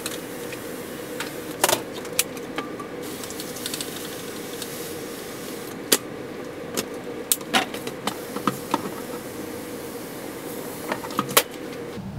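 Scattered sharp clicks, knocks and rattles from glass terrarium doors and a hand pump spray bottle being handled while the frog enclosures are misted, over a steady hum.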